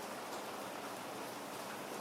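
Steady rain, an even hiss with faint scattered ticks of drops.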